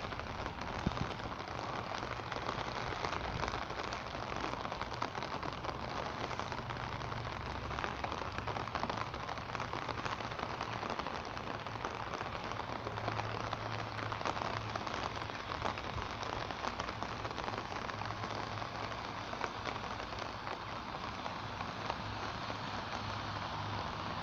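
Steady rain falling, dense with the ticks of individual drops striking an umbrella held overhead.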